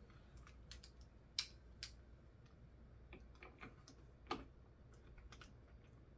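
Faint, irregular clicks and taps of a screw and hand screwdriver being handled against a plastic chair headrest bracket, with two sharper clicks about a second and a half and about four seconds in.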